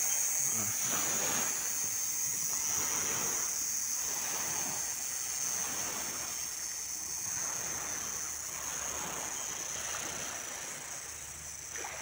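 Insects droning steadily at one high pitch in tropical woodland, over a rushing background noise that swells and fades every second or two.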